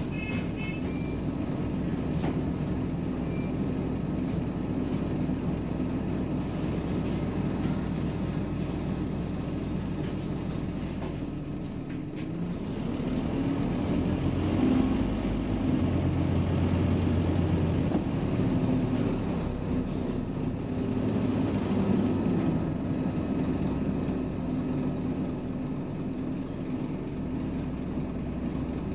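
Scania Omnicity double-decker bus running. The engine eases off about twelve seconds in, then pulls harder and louder with a deep hum for several seconds before settling again.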